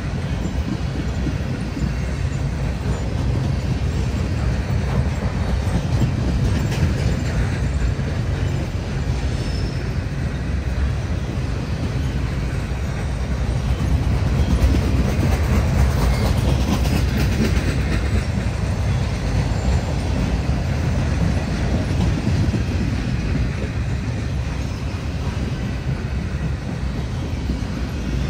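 Cars of a CSX freight train rolling past with a steady rumble of steel wheels on rail, swelling a little about halfway through.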